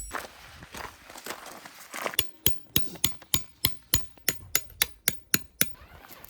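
Hammer driving metal tent pegs into the ground: a fast, even run of about a dozen strikes, roughly three or four a second, with a faint metallic ring. It starts about two seconds in and stops shortly before the end.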